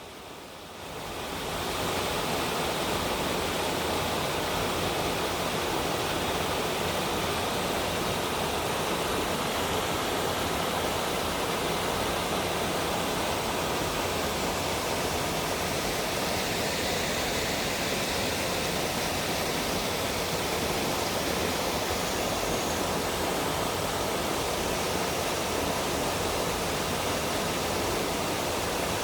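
Mountain stream rushing steadily over rocks, the water noise fading in over the first two seconds.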